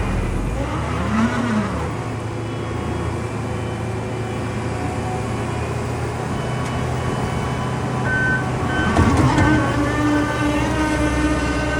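New Holland C362 skid steer's diesel engine running, its pitch rising and falling as the machine works. A steadier higher tone joins in about nine seconds in.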